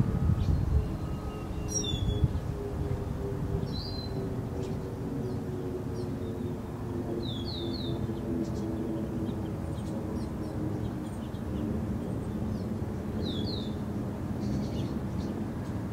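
Outdoor birds giving short, sharp, falling chirps: a few single notes and a quick run of three. Under them runs a steady low rumble of background noise.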